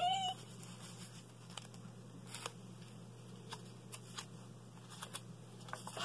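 Faint handling of a paper greeting card as it is lowered and opened: a few soft clicks and rustles, spaced irregularly, over a steady low electrical hum.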